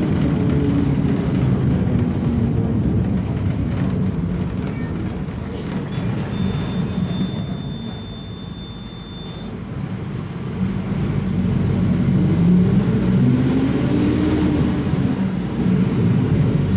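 Mercedes-Benz OF-1721 city bus's diesel engine and drivetrain running under way, with the differential droning. The engine note drops and goes quieter about halfway through, then climbs in pitch again as the bus pulls away, and a faint steady high whine sounds for a few seconds during the quiet stretch.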